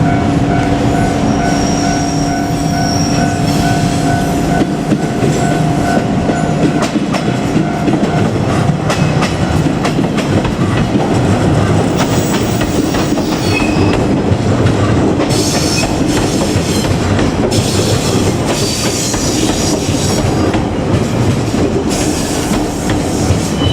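JR Kyushu 817 series electric train, two coupled sets, running close past the crossing. Its wheels clack steadily over the rail joints. High-pitched wheel squeal rises several times in the second half.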